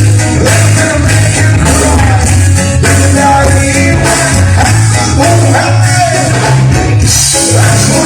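Loud band music with a steady repeating bass line and a singing voice.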